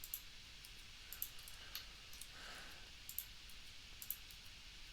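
Faint, sparse clicks of a computer mouse and keyboard, about five over the few seconds, against a quiet room hiss.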